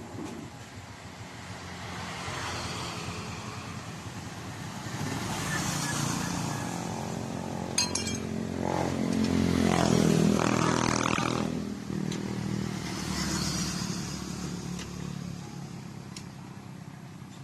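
Motorcycle engine running. It grows louder to a peak about ten seconds in, then fades away, with a brief rattle of clicks just before the peak.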